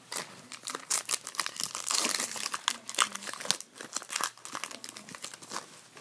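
Foil wrapper of a trading-card pack crinkling and tearing in the hands, a dense, irregular crackle that is busiest about two seconds in.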